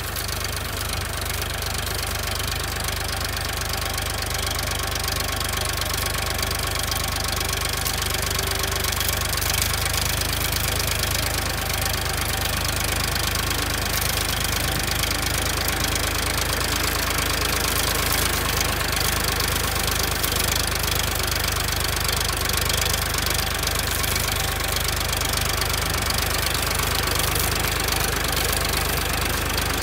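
Farmtrac Champion XP41 tractor's diesel engine running steadily as the tractor drives through the field.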